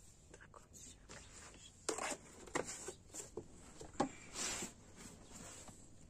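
Flour being handled in metal bowls: a few short, sharp knocks and clinks, the loudest about two and four seconds in, with a brief rustle of flour just after four seconds.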